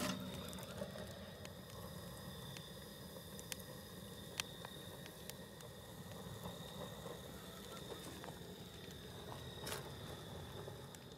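Faint, scattered crackles from a smouldering wood-and-charcoal fire in a barrel grill, a handful of small clicks over a low steady background with a faint high whine.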